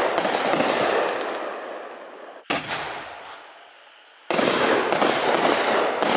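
60-gram canister firework shells bursting with dense crackling that fades away. About two and a half seconds in comes a single sharp boom as the next shell lifts off, and a second crackling burst breaks out a little after four seconds.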